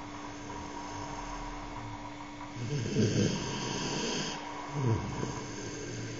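Snoring: a faint steady hum, then a long, loud snore with a hissy edge about two and a half seconds in, followed by a shorter snore about a second later.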